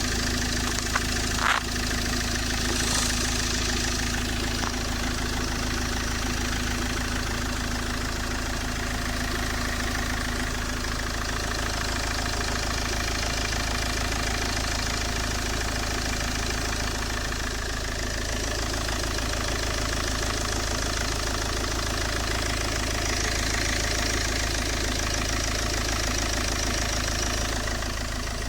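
Peugeot 807's 2.0 HDi four-cylinder diesel engine idling steadily, with a short sharp click about a second and a half in.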